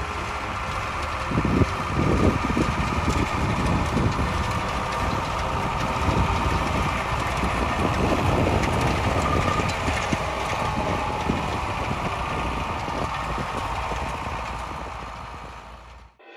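MB Trac 900 tractor's diesel engine running steadily while it drives a front-mounted Clementer 550F comb swather through cut grass, with a faint steady whine on top of the engine noise. The sound fades out near the end.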